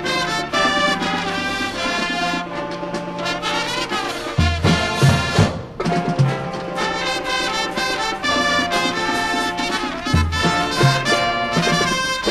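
High school marching band playing a field show: brass sustaining chords over percussion, with strong low hits about four and a half seconds in and again near ten seconds.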